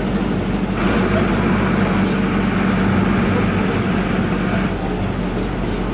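Air-cooled Deutz F4L912 four-cylinder diesel of an Otokar M-2000 minibus running steadily under way, heard from the cab. A brighter, higher rush joins about a second in and drops away near the five-second mark.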